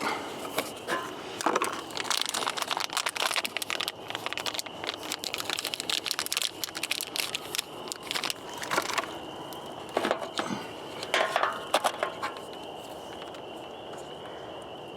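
Hands working the riding mower's headlight bulbs and sockets out of their plastic housing: a busy run of clicks, rattles and scrapes that thins out after about twelve seconds. A faint steady high tone sits underneath in the second half.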